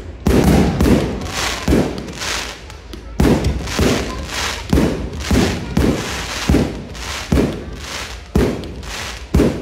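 Fireworks display with aerial shells and comets launching and bursting in rapid succession: a string of sharp bangs, about one and a half a second, each trailing off.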